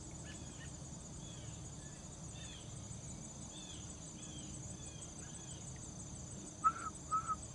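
Insects trilling steadily in a high pulsing chorus, with a bird giving short arching chirps over and over. Near the end come three short, louder notes.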